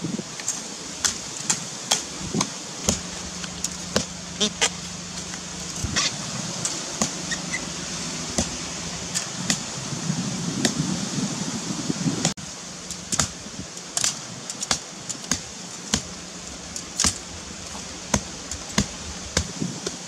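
A long curved knife chopping into earth and roots at the base of a bamboo clump: sharp, short strikes at roughly two a second.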